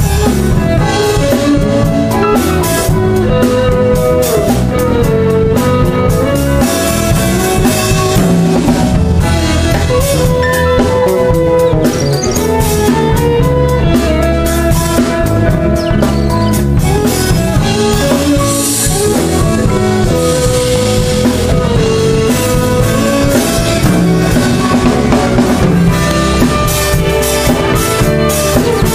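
Live band playing, with electric guitar and drum kit over a steady beat.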